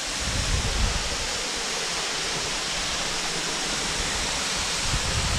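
Steady rush of water from a waterfall cascading over rocks.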